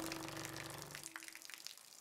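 The last notes of music fade away in the first second or so, leaving faint trickling and dripping water.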